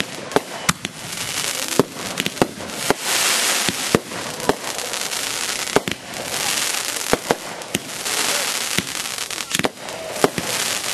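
Consumer aerial fireworks going off in quick succession: many sharp bangs and pops over stretches of dense hissing crackle from the burning stars.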